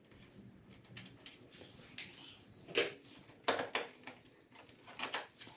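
Scattered sharp clicks and clatters of small parts and hand tools being handled during motorcycle panel removal, several short knocks a second or so apart.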